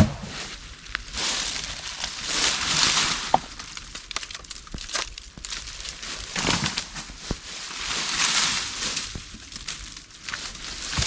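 Dry leaf litter and branches rustling and knocking as they are pulled off a debris shelter. The noise comes in several bursts, with a few sharp snaps or knocks of sticks between them.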